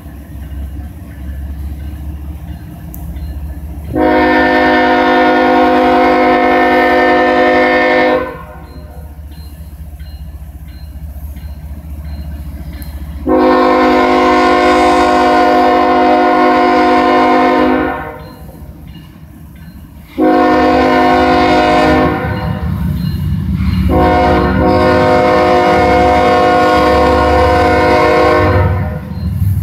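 Air horn of an approaching CSX diesel freight locomotive sounding the grade-crossing signal: two long blasts, a short one, then a long one. The horn is a chord of several tones, over the low rumble of the approaching train.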